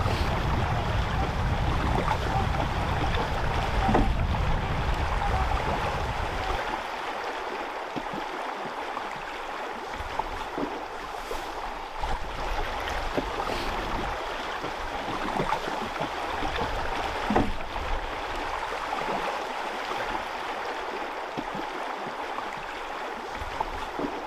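Steady rush of flowing river water, with wind rumbling on the microphone for the first several seconds.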